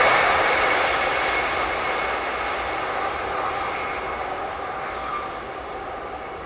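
A Fyra passenger train, hauled by class 186 electric locomotive 186 114, runs away on the line. Its rolling noise of wheels on rail dies away steadily.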